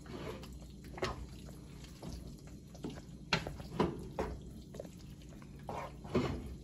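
Thick macaroni and cheese being mixed in a pot with a spoon: several short, wet squelches as the spoon works through it.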